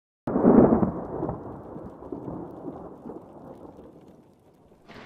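A clap of thunder breaks in suddenly and rumbles away over about four seconds, and a second clap starts near the end.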